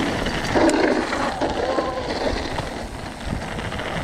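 Mountain bike rolling over a rough dirt and cobbled path: steady tyre noise with constant rattling of the bike over the bumps. A brief shout-like pitched sound is heard about half a second in.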